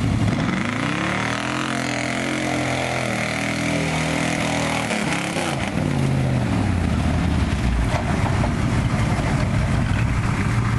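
Truck engine revving: the revs climb over the first second or two, hold high for a few seconds, then fall back about five seconds in, and the engine keeps running at lower revs.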